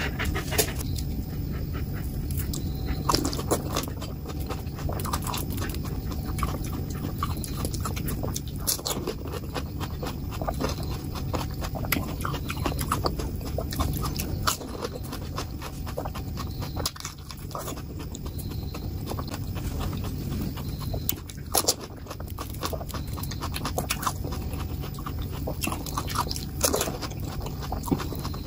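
Close-miked chewing of pani puri: crisp puri shells filled with spiced water being bitten and chewed, with many small wet mouth clicks.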